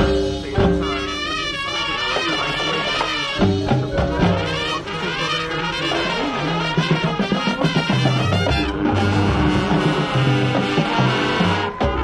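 High school marching band playing: brass (trumpets and trombones) over percussion, in full continuous music with a steady low beat.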